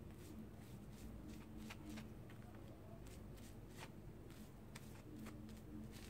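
Silicone pastry brush working wet whipped egg white over a paper towel on skin: faint, irregular soft brushing and rustling strokes.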